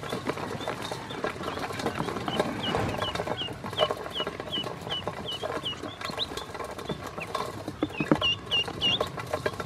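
Ducklings peeping: a steady run of short, high chirps about two or three a second, with a louder cluster near the end. Bills and feet tap and scrabble on a stainless steel feed bowl underneath.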